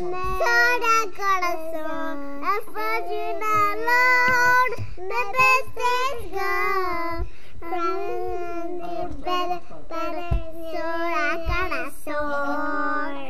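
Young girls singing a simple tune in high child voices, the pitch wavering and sliding, in phrases with short breaks between them.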